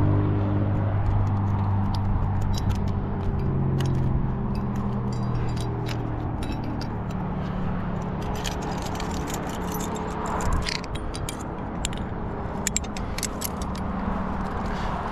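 Steady drone of road traffic from the highway below, with engine notes shifting slowly in pitch, overlaid by the jangle and clink of a climbing-gear rack: carabiners and cams knocking together, more often in the second half.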